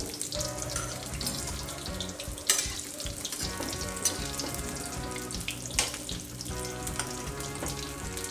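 Ram laddoo fritters frying a second time in hot oil in an iron kadhai, the oil sizzling and crackling steadily as they are turned and stirred to crisp them. There are two sharper knocks, about two and a half and six seconds in, from the slotted spoon against the pan.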